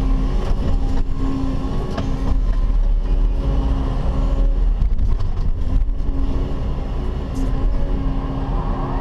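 Caterpillar 316E excavator's diesel engine and hydraulics working as the bucket digs into and curls up a load of dirt, heard from inside the cab: a steady engine drone with faint whining tones that shift in pitch.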